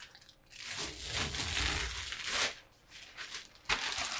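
Protective plastic film being peeled and crumpled off a 3D printer's panels: a crinkling, tearing rustle lasting about two seconds, then a single sharp click near the end.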